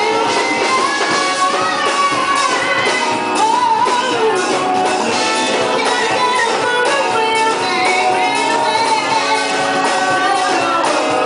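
Live soul band playing, with singers over keyboard, electric guitar and drums, loud and continuous.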